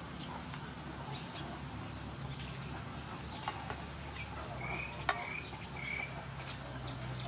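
Light clicks and scraping of a steel tray against a steel bowl as grated coconut is pushed off it by hand, with one sharper clink about five seconds in, over a low steady hum. A bird chirps three short times in the second half.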